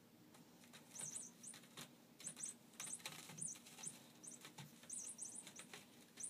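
A kitten's claws scraping and catching on the rope-wrapped post of a cat tree as it climbs, heard as a quick, irregular run of faint short scratches and taps.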